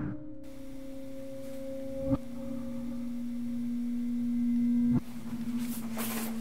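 Background music of a low, held pure tone with a fainter higher one above it, stepping slightly lower about two seconds in and again about five seconds in, with a soft click at each change.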